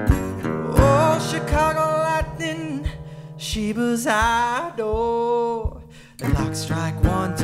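Wood-bodied resonator guitar picked in a steady rhythm under a sung melody that glides up and down. The voice stops about six seconds in, and after a brief dip the guitar picks up again alone.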